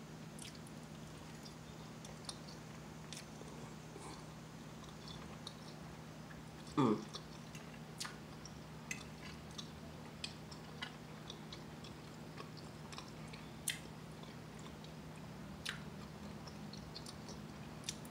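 Close-miked chewing and mouth sounds of a person eating pancakes with peach compote and home fries, with scattered small clicks and smacks, over a steady low hum. A short hummed voice sound comes about seven seconds in.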